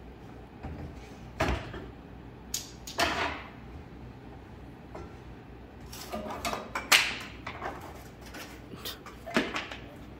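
Workshop handling noises: irregular knocks, clatters and short scrapes of materials being moved and set down, the loudest about seven seconds in, over a faint steady hum.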